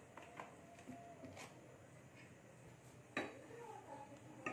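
Quiet knocks and clicks of a frying pan being handled and shifted on a gas stove's burner grate to spread the oil, the loudest knock a little past three seconds in and another near the end.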